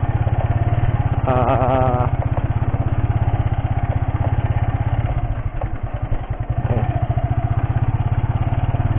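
A motorcycle engine runs steadily with a rapid low pulsing as the bike rolls along a dirt track. About five seconds in, the engine eases off and its beat thins out, then it picks up again near seven seconds.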